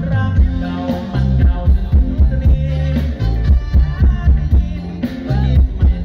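Live band music played loud through a concert PA, with a heavy kick drum beat, a bass line and a singing voice.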